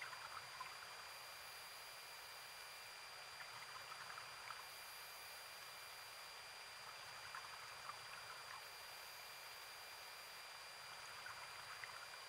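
Faint crackling bubbles of a SCUBA diver's exhaled air leaving the regulator, heard underwater in four short bursts a few seconds apart, over a steady hiss.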